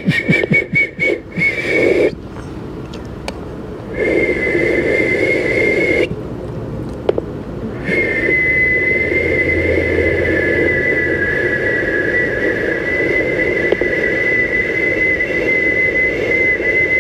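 A man whistling one steady high note, blown in long breaths. It flutters briefly at first, stops twice for breath, then is held as one long, unchanging note for about ten seconds.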